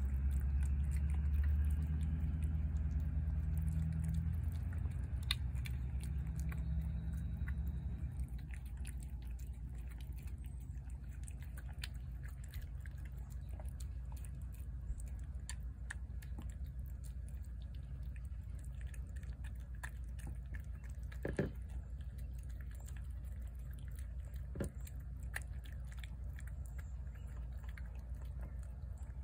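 A domestic cat chewing and lapping wet shredded chicken close to the microphone: irregular small wet clicks and smacks. A low steady hum sits under the first several seconds.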